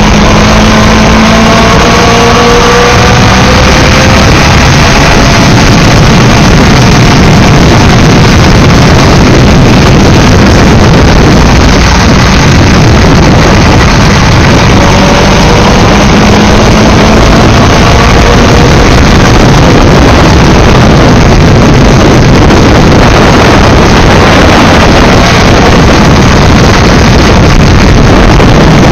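Motorcycle engine running on the move, heard from on board with heavy wind rush on the microphone; its pitch rises as it speeds up near the start and again about halfway through.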